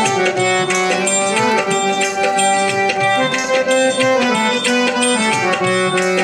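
Instrumental interlude of an Indian devotional song: a melody of held notes over a steady percussion beat.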